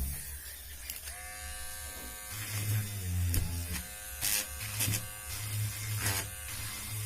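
Small electric motor of a homemade mini drill running with a buzzing whine, its pitch dropping and rising several times as it slows and speeds up, with a few short harsh bursts near the middle and end.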